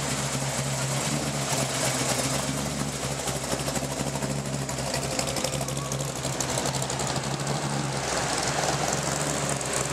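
Hot rod engine running at low speed with a fast, even pulse as a black 1930s Ford coupe hot rod drives slowly past. About eight seconds in, the sound shifts as a C3 Corvette follows it.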